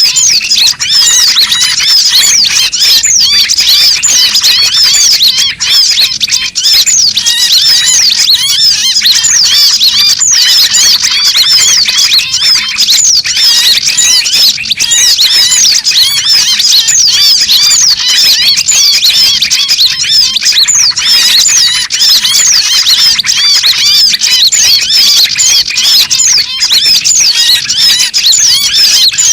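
Bird-lure recording of many small birds chattering at once: a dense, unbroken mass of rapid high chirps and squeaks. It is a pikat call used to draw small birds down onto lime sticks.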